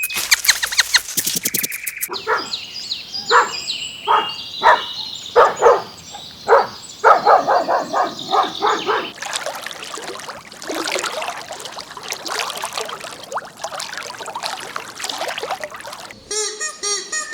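A dog barking repeatedly, about a dozen short barks, with birds chirping above them. It is followed by a rougher, noisier stretch, and clear birdsong comes in near the end.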